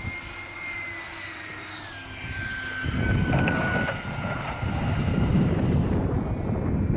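Radio-controlled model F-16 jet on its takeoff roll: a steady high whine that drops in pitch about two seconds in as the jet runs off down the runway. A loud low rushing noise comes in about three seconds in and stays to the end.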